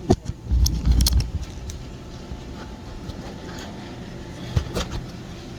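A few knocks and clicks with a low rumbling bump, like someone clambering over equipment or the phone rubbing and being handled, in the first second and a half, and another click near the end. A steady low machinery hum runs underneath.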